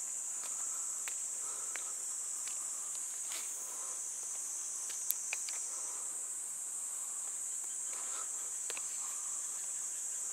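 Steady high-pitched insect chorus, with scattered faint clicks and one sharper click about five seconds in.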